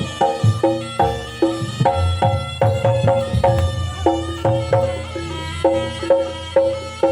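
Loud gamelan-style jaranan accompaniment: fast, evenly repeated struck pitched metal notes over hand-drum beats, in a steady repeating pattern.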